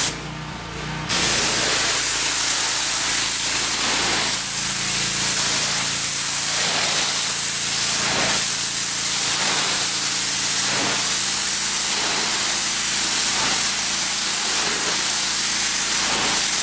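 Pressure washer jet spraying water onto a wooden deck: a steady hiss, with the machine's steady hum running underneath. The spray cuts out at the start and comes back on about a second in.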